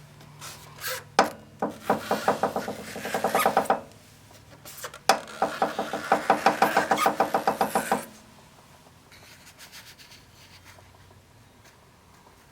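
Rear drive pulley hub of a 2007 Kawasaki Vulcan 2000 LT popping in rapid runs of about five to six pops a second. Each of the two runs is set off by a sharp click and lasts a few seconds. The owner traced the popping to a missing spacer in the hub, which let the pulley flex on its rubber dampers.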